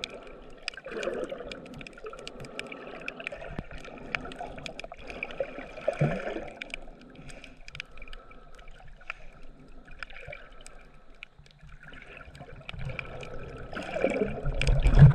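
Water movement heard underwater on a GoPro: a muffled wash with a scattered crackle of sharp clicks. Near the end it swells into a louder low rumbling churn as a swimmer's bare feet kick close to the camera, trailing bubbles.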